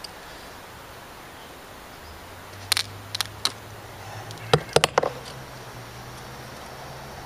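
Sharp clicks of a small tool prying tiny staples out of a plexiglass panel. Three separate clicks come about three seconds in, then a quick cluster of four a second or so later.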